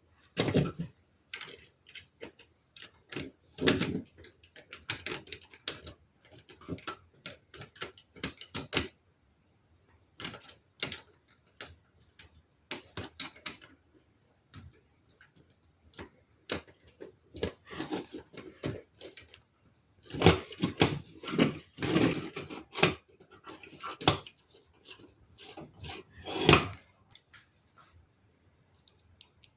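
Plastic LEGO Technic pieces rattling and clicking in quick, irregular clusters as loose parts are handled and pressed together, with a few short pauses.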